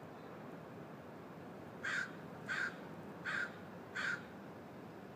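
A gull calling four short, harsh notes in a row, starting about two seconds in, over a steady background hiss.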